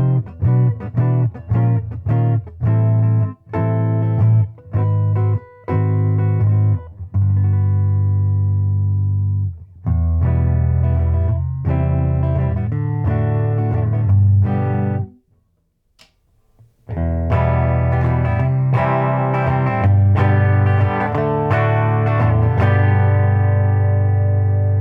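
Electric guitar played through an amplifier and picked up by an MXL 144 ribbon mic over an XLR cable. It opens with short, choppy chords, then moves to longer ringing chords, with a pause of about two seconds roughly two-thirds of the way through.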